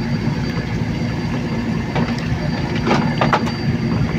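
Fishing boat's engine running steadily with a low hum, with a few short knocks and scrapes about two seconds in and again around three seconds in as the caught fish is handled on the deck.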